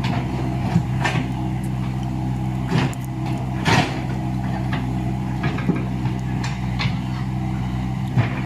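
Komatsu excavator's diesel engine running steadily under work, with irregular sharp knocks and clanks from the machine working the broken road surface.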